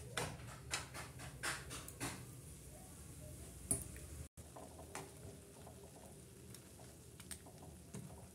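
Metal spatula stirring and scraping instant noodles in water in a steel kadai. A quick run of scrapes comes in the first two seconds, then single scrapes and taps now and then.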